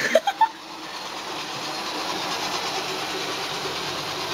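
Roomba robot vacuum running steadily, its motor and brushes making an even whirring hiss, after a few brief sounds in the first half second.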